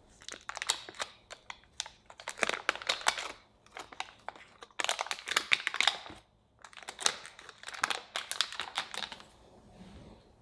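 Foil-lined paper wrapper of a block of butter being unfolded and peeled open by hand, crinkling in four bursts with short pauses between.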